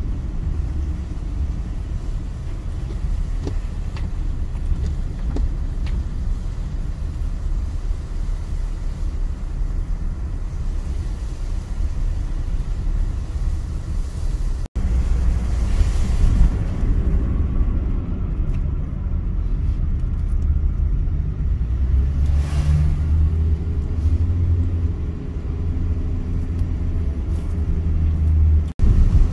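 Steady low rumble of a car's engine and its tyres on a wet road, heard from inside the cabin. The sound drops out briefly about halfway through and again near the end.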